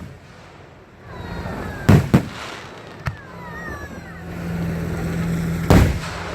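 Fireworks going off: two sharp bangs close together about two seconds in, a smaller one about a second later, and the loudest bang near the end.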